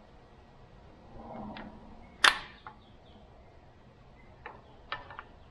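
Metal-on-metal clicks as the exhaust rocker-arm assembly of a Subaru 2.5L single-cam engine is set down onto the cylinder head. There is one sharp, loud clunk a couple of seconds in, then a few lighter clinks of the rocker parts settling.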